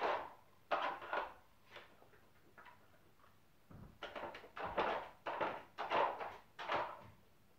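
A dog's paw scraping and knocking on a wooden Dog Twister puzzle board as it works the pieces to get at hidden treats. There are a few scrapes at first, then a quicker run of scrapes and knocks in the second half.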